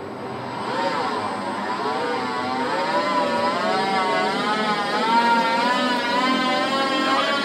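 Tower crane's drive motor whining as the crane slews. The whine grows louder about a second in, and its pitch wavers up and down about once a second.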